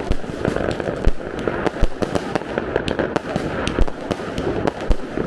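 Many privately launched New Year's Eve fireworks and firecrackers going off at once: a dense, continuous barrage of bangs and crackles, with a few heavier booms standing out.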